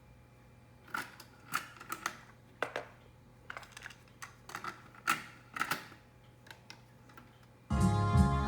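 A series of sharp mechanical clicks and clunks, as of a Sony TC-FX200 cassette deck's controls and tape mechanism being worked between songs, over a faint steady hum. Music starts playing again near the end.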